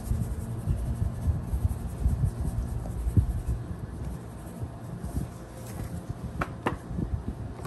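Handling noise as seasoning is shaken from a plastic shaker onto a rack of raw ribs in a plastic container: low, irregular bumps and rubbing that ease off about halfway, then two short taps a little after six seconds in.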